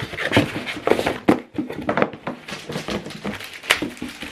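Hands handling cardboard and paper packaging: irregular taps, light knocks and rustling.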